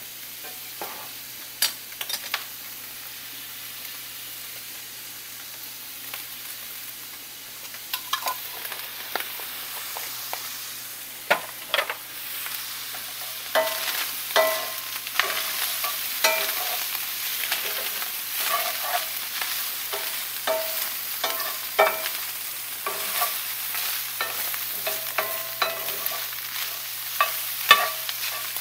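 Ground meat and onions frying with a steady sizzle in a cast-iron skillet, while a stainless steel spoon scrapes and clinks against the pan as the meat is stirred and broken up. The spoon sounds come only now and then at first, then often from about a third of the way in.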